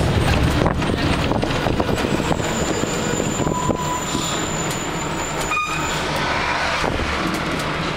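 Steady rumble and wind rush of a moving vehicle, heard from inside through an open window.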